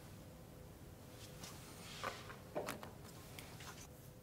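Faint taps and scrapes of a steel ruler and pencil being handled on a wooden panel while a measurement is marked, a few soft ticks over a faint steady hum.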